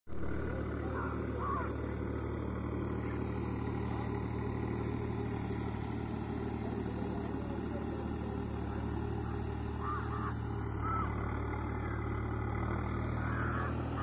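Tractor engine running steadily at work ploughing, a low even drone, with short bird calls a few times over it.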